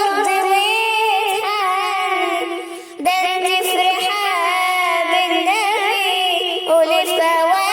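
A woman singing a long, ornamented melismatic line without clear words, her voice wavering in a wide vibrato, with a brief break for breath about three seconds in.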